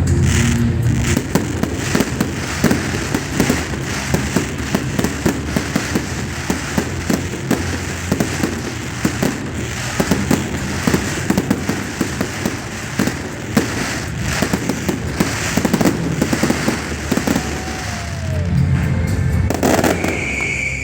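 Fireworks and firecrackers going off in a dense, continuous barrage of bangs and crackles.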